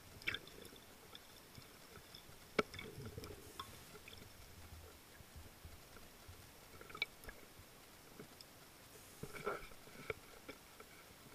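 Faint underwater sound as picked up by a diving-mask camera in its housing: a low water murmur with scattered sharp clicks and knocks, the sharpest about two and a half seconds in and a small cluster near the end.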